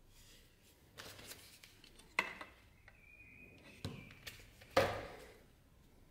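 Hands handling a knife and a fibrous cloth wrap on a workbench: scattered rustles and a few sharp knocks, the loudest about two seconds and nearly five seconds in.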